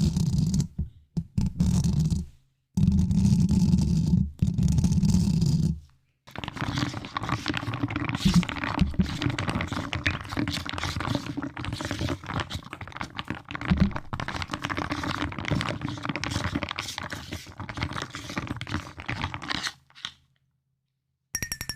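Close-miked ASMR trigger sounds: four short bursts of rubbing noise with brief gaps, then a long unbroken run of dense crackly scratching and tapping that stops a little before the end.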